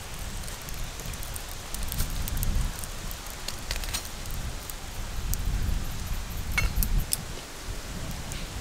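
Handling sounds as a charred green coconut, sealed with dough, is gripped in a cloth and lifted out of a clay mud stove: cloth rustling and scattered crackles and scrapes of the burnt husk, over a low rumble.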